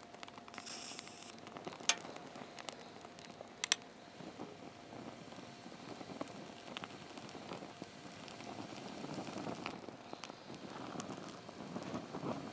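Wood campfire crackling, with scattered snaps and two sharp pops about two and four seconds in; the crackling grows denser toward the end.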